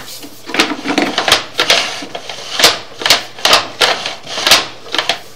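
Sewer inspection camera's push cable being worked back and forth, making sharp, irregular clacks and knocks about two a second, some with a short metallic ring. The camera head is stuck at a point in the line where it will not advance.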